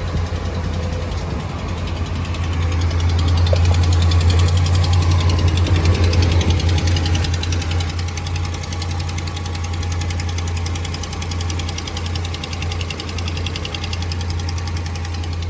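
A 5.7 Hemi V8 idling with a fast, even ticking: an exhaust leak at broken exhaust-manifold (header) bolts, heard on a cold start. It runs a little louder from about three seconds in to about seven.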